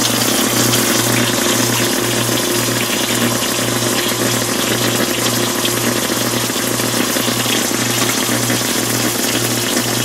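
Water-soaked portable radio giving out a low hum that throbs about twice a second, like a heartbeat, its circuitry failing from the water inside it. Under it is a steady hiss of the dishwasher's spray arms throwing water.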